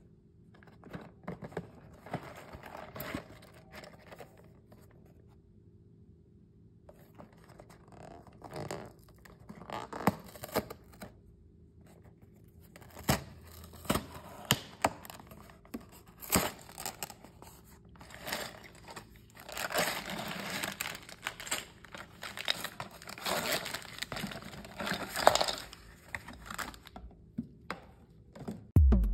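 A LEGO set's cardboard box being torn open at its perforated flap, then its plastic parts bags rustling and crinkling as they are handled. Irregular tearing and rustling with sharp clicks, and a quieter pause a few seconds in.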